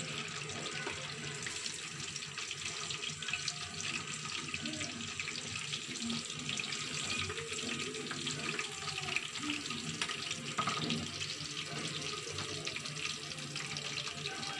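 Breaded chicken pieces deep-frying in hot oil: a steady sizzle with fine crackles throughout.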